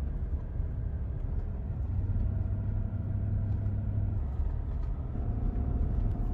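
Steady low road rumble of a vehicle driving on the highway, heard from inside the cabin, with a faint steady hum over it.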